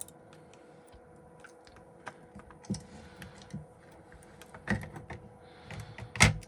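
Irregular small clicks and taps from handling an iPhone XS motherboard and its screen flex cable while connecting them, with a sharper click about three-quarters through and the loudest near the end.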